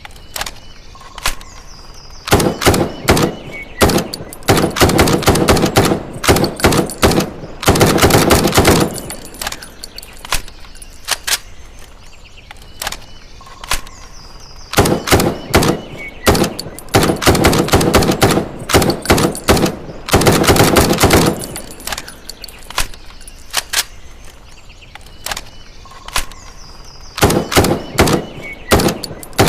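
M656 rifle sound effect: single shots and bursts of rapid fire, ending in a long, fast burst, in a sequence of about twelve seconds that repeats.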